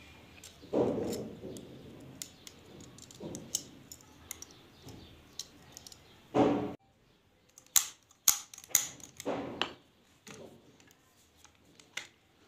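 Metal parts of a Chinese B2 spring air rifle being handled and fitted back together: scattered sharp clicks and clinks of steel on steel, with a few short, louder rubbing noises.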